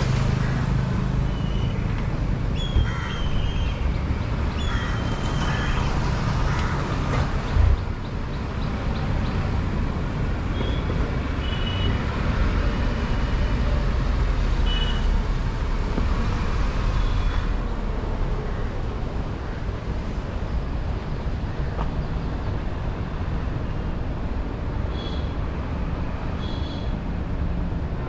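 Steady low vehicle rumble with a brief thump about eight seconds in. Short bird chirps come now and then.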